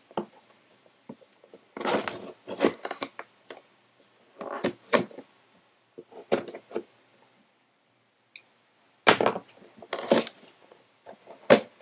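A knife slitting the packing tape on a cardboard shipping box, heard as a series of short scraping and tearing strokes with pauses between. Cardboard rustles and knocks as the box is handled, loudest near the end.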